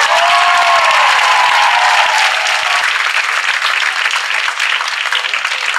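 Theatre audience applauding, with one drawn-out cheer over the first two seconds; the clapping thins toward the end.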